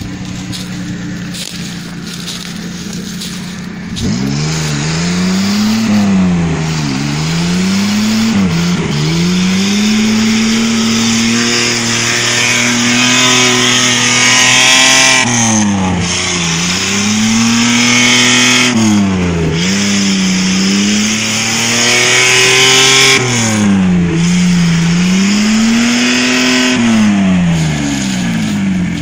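Off-road 4x4 SUV's engine working under load. About four seconds in it surges up, then repeatedly climbs and drops in pitch every couple of seconds as the driver works the throttle. A steady hiss of tyres churning through mud and leaves runs underneath.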